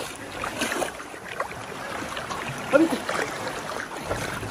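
Sea water lapping and sloshing close by, with small splashes from a dog swimming. One short voice-like sound just under three seconds in.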